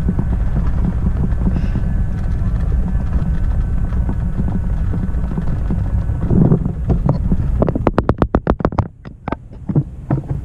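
Wind buffeting an action camera's microphone with a steady low rumble. About eight seconds in comes a quick run of sharp clicks, roughly ten a second.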